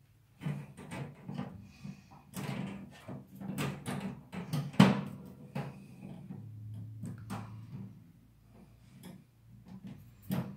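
A hamster scrabbling about in a dish of bathing sand: irregular scratchy rustles and light knocks, loudest about five seconds in.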